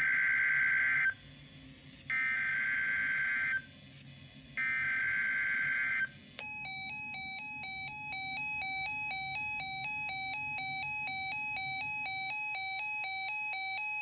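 Emergency Alert System alert: three buzzy digital SAME header data bursts, each about a second long with short gaps between. About six seconds in, the EAS attention tone starts, a steady alarm that flips rapidly back and forth between two pitches.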